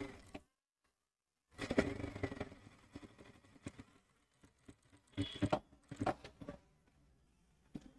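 Industrial lockstitch sewing machine stitching a shirt cuff onto a sleeve in short start-stop runs: one run of about a second and a half near the start, another around the middle, and a brief one at the end.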